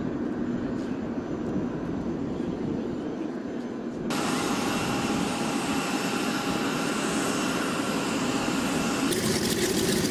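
Steady aircraft engine noise on an airfield: a dense rushing sound with steady whines in it. The sound changes abruptly about four seconds in and again near the end, as the soundtrack cuts between shots.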